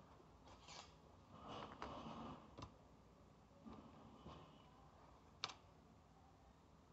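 Near silence with faint rustling and a few soft clicks from shadow puppets being handled behind the screen; one sharper click about five and a half seconds in.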